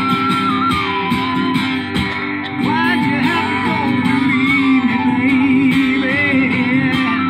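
Acoustic guitar picking steadily, with a Native American flute playing a slow melody of long held notes over it that waver with vibrato in the second half.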